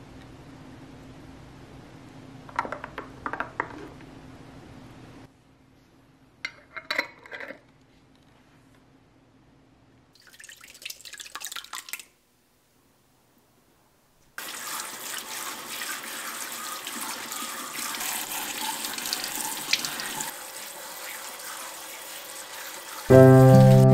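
Kitchen tap running into a stainless mesh strainer as aloe vera gel is rinsed by hand, a steady rush of water through the second half. Before it come a few light clinks of utensils on glass, and piano music starts right at the end.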